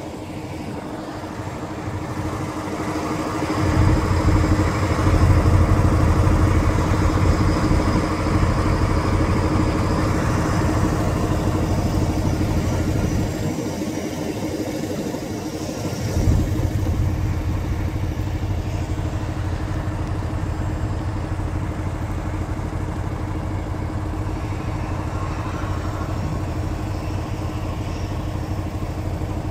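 GE PowerHaul V16 diesel engine of a Class 70 locomotive running, with a steady hum over a deep rumble. The rumble swells about four seconds in, eases briefly around the middle, then runs steady again.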